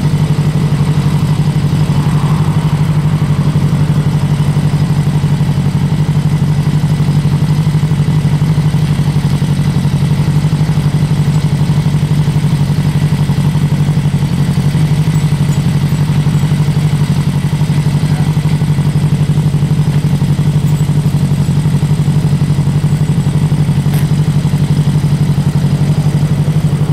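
Motorcycle engine idling steadily, a constant low hum that does not change in speed.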